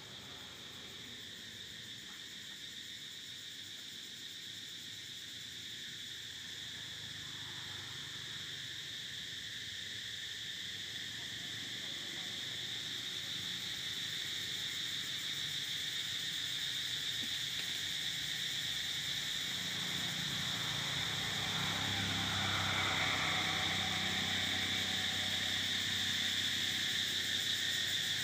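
A high, steady insect chorus that grows gradually louder.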